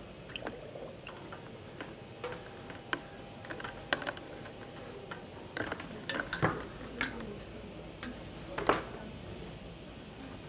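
Scattered light clicks and knocks of a clear plastic hose and a small water pump's cord being handled against a plastic bucket, a few sharper knocks between about halfway and near the end.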